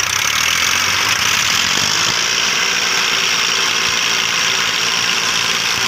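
Diesel tractor engine running steadily under heavy load, hauling a trolley piled with sugarcane.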